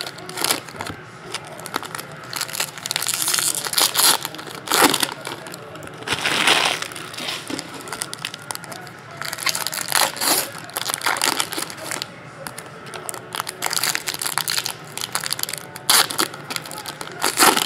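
Foil wrappers of Bowman Draft baseball card packs crinkling and tearing as they are handled and opened by hand, in a string of separate crackling rustles with a longer one about six seconds in.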